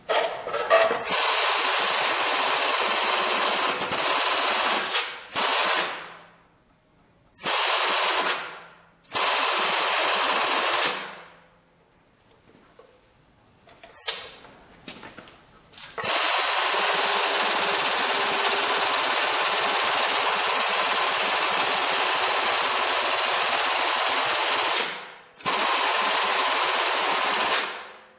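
A handheld power tool run on metal in repeated bursts, the longest about ten seconds, each winding down over a moment when released.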